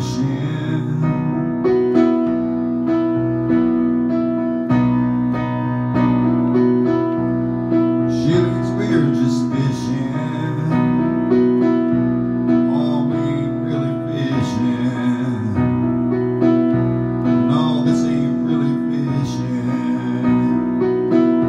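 Digital keyboard playing piano chords, struck again and again in a steady rhythm, with a man's voice singing over it in places.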